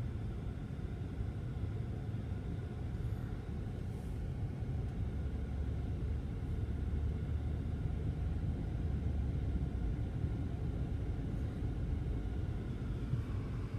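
Car driving along a street: a steady low rumble of engine and road noise.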